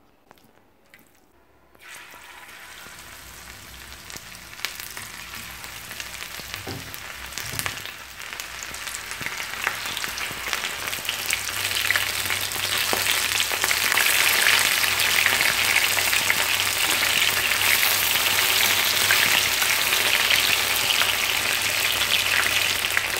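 Chicken drumsticks frying in hot oil in a pan: a crackling sizzle that starts about two seconds in, grows steadily louder, and holds steady through the second half.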